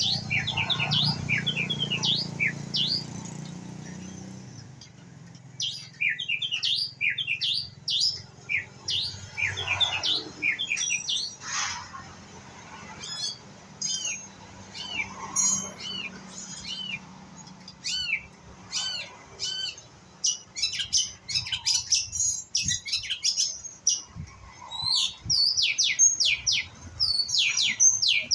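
White-rumped shama singing: bursts of rapid, varied chirps and whistled rising and falling slurs, busiest in the last few seconds. A low hum sits under the first few seconds.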